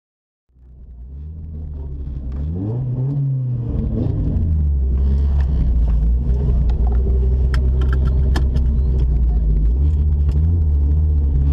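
Chevrolet Corsa 1.6's four-cylinder engine idling, heard from inside the cabin, fading in over the first few seconds. There is one short blip of the throttle about two to three seconds in, and the revs rise slightly again near the end, with scattered sharp ticks over the engine.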